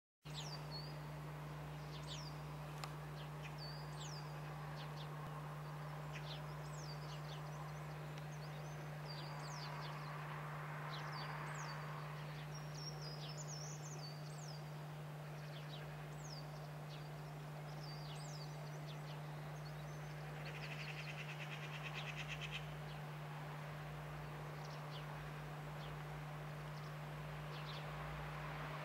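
Small birds calling: repeated short, high chirps that each drop sharply in pitch, over a steady low hum. A fast buzzing rattle sounds for a couple of seconds about two-thirds of the way through.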